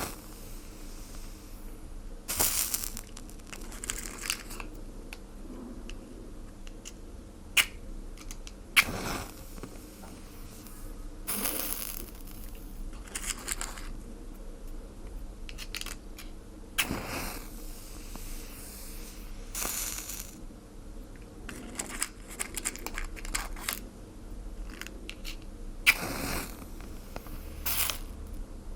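Fire crackling and hissing in irregular sharp snaps and short bursts, the sound of flames going out.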